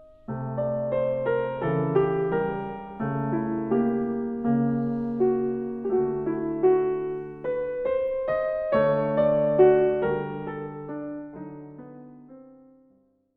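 Outro music: a keyboard tune with a melody over chords. It fades out near the end.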